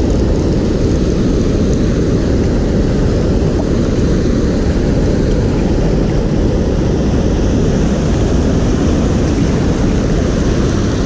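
Steady rushing of water spilling over a low weir in a stream.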